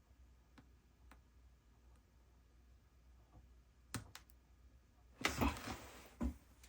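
Faint scattered clicks, a sharper double click about four seconds in, then a burst of handling noise with rustling and two knocks near the end, as small parts and tools are handled on a workbench.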